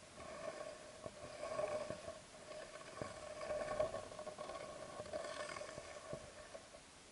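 Faint, muffled underwater sound picked up by a Sony HDR-AS15 action camera in its waterproof housing: a wavering hum with a few soft knocks.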